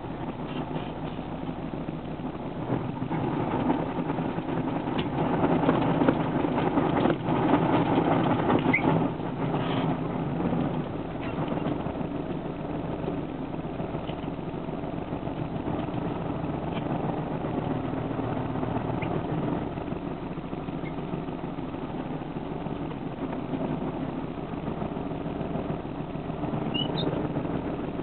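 Tatra 815 dump truck's diesel engine running, heard from inside the cab. It grows louder for several seconds early on, then settles back to a steady run.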